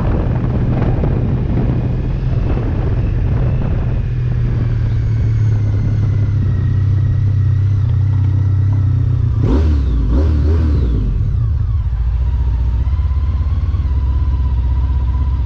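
Honda ST1300's V4 engine, fitted with Delkevic aftermarket mufflers, running steadily as the motorcycle rolls along at low speed. A short irregular burst comes about ten seconds in, and the engine then settles to a lower, steady idle as the bike stops.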